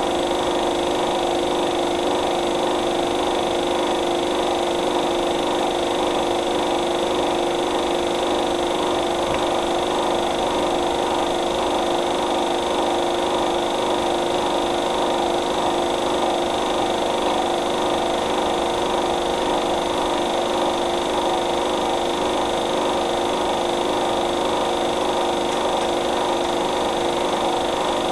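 Steady, unchanging mechanical drone with a constant hum, no breaks or changes in level.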